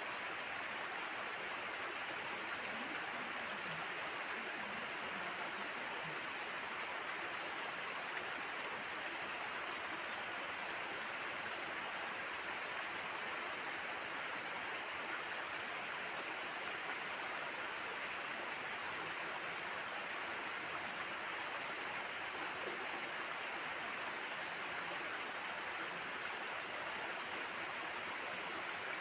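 Steady, even rushing noise like running water, unchanging throughout.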